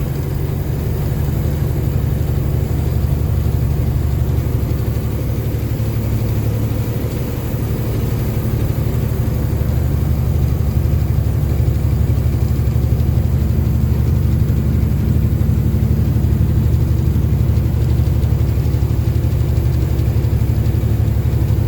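Semi truck's Detroit Diesel Series 60 14-litre engine running steadily at highway cruise, heard inside the cab as a low drone mixed with road noise.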